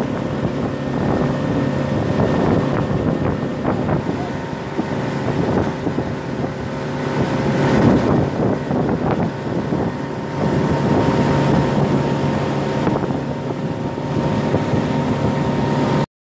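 A 50 hp outboard motor running steadily at speed, with the wake water rushing and wind buffeting the microphone. The sound cuts off abruptly near the end.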